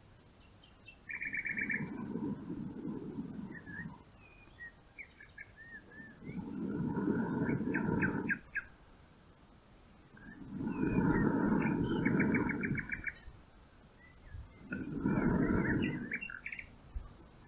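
Small birds chirping, with short fast trills repeated several times. Four louder bursts of low rushing noise, each about two seconds long, come and go between them.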